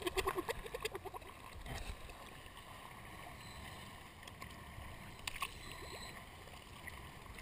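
Sea water splashing at the surface: a quick run of splashes from a diver's arm in the first second, then faint lapping of water at the waterline with a few small knocks.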